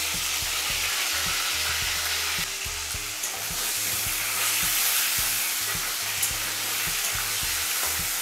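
Potato chunks sizzling steadily as they fry in hot mustard oil in a metal kadai. A metal spatula clicks and scrapes against the pan as the potatoes are turned.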